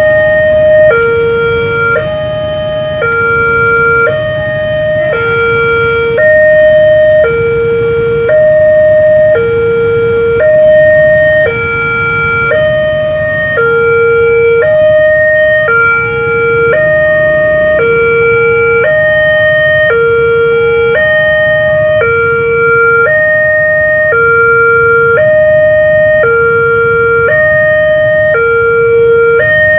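Indonesian railway level-crossing warning alarm sounding: an electronic two-tone bell alternating a higher and a lower tone, about one tone a second, signalling that a train is approaching and the barriers are down.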